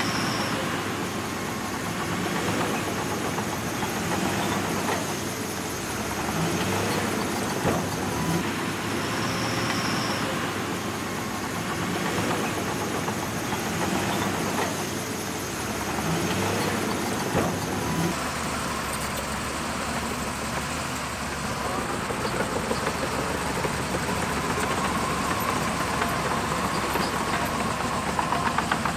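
Shantui DH17C2 bulldozer's diesel engine running under changing load, swelling and easing every two to three seconds. About eighteen seconds in it settles to a steadier drone with a faint whine, and a rapid clatter comes in near the end.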